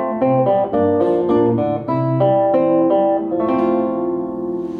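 Acoustic guitar fingerpicked alone, single notes and chords plucked about three times a second, then a chord struck a little past halfway and left to ring out.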